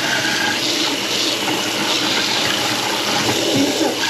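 Kitchen faucet running steadily into the sink, the test run of a drain just cleared of a grease clog.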